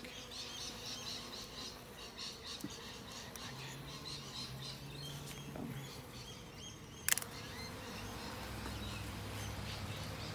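Honeybees buzzing faintly around an open hive while a frame is lowered back into the box with a metal frame grip, with one sharp click about seven seconds in.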